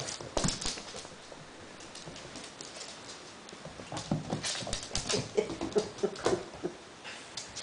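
A puppy at play: scuffling and taps of paws and claws, busier in the second half, with short whines and growl-like noises mixed in.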